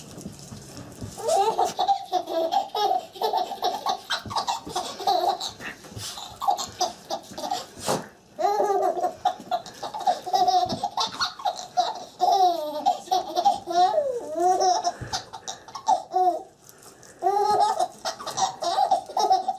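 A baby laughing hard in repeated runs of short, high-pitched laughs, with brief pauses about eight and sixteen seconds in.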